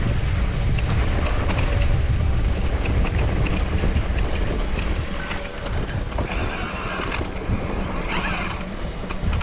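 Wind buffeting the microphone as a heavy low rumble, with scattered small clicks and rattles from an e-mountain bike riding over rough ground. Two brief hissing rushes come about six and eight seconds in.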